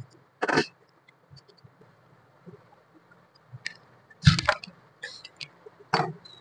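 A small cardboard box being handled and its seal slit with a hobby knife: three short scraping, rustling sounds, the loudest about four seconds in with a dull knock, and faint small clicks between them.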